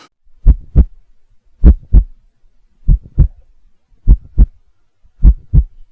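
Heartbeat sound effect: five deep double thumps, lub-dub, evenly spaced about one every 1.2 seconds.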